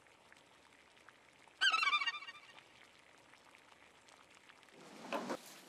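Faint bubbling of a pot of pork belly braising in a soy-based liquid, with a brief high-pitched wavering sound about a second and a half in.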